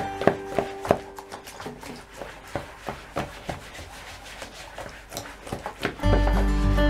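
A hand scrubbing a wet, soapy fabric mermaid tail in a bathtub: rubbing strokes, about three a second. Background music fades out at the start and comes back loudly near the end.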